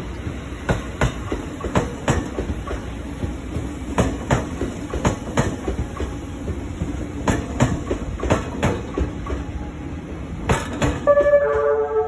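E001-series Shiki-shima train departing, its wheels clicking over the rail joints in quick pairs as each car's bogies cross, over a low rolling rumble. Near the end a melody of held tones begins.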